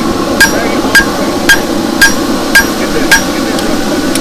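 Hand hammer striking hot steel on an anvil in a steady rhythm, about two blows a second, each blow ringing, as the blade's tail is rolled.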